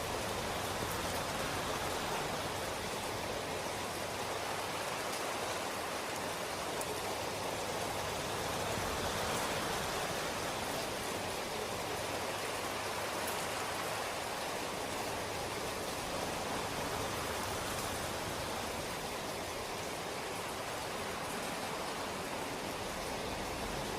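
Steady rain falling, an even rushing hiss with faint scattered drop ticks.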